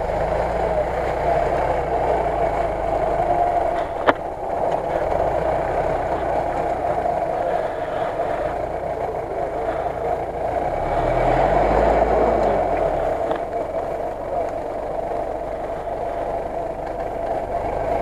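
Engine of an off-road 4x4 running under load as it crawls through deep mud, revving up and back down about eleven to twelve seconds in. A single sharp knock about four seconds in.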